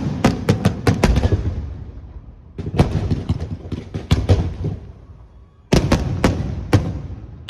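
Fireworks display: rapid volleys of aerial shell bursts, sharp cracks and booms each trailing off into rolling echo. Three separate flurries, the last starting suddenly near the end after a short lull.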